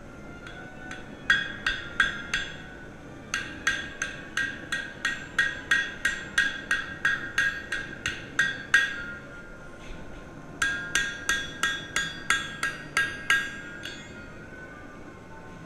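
Hammer blows on the steel neck of a putter head held in a post vise, each strike ringing with a clear tone. They come in runs of about three blows a second: a few scattered strikes, a long run, a pause, then another run.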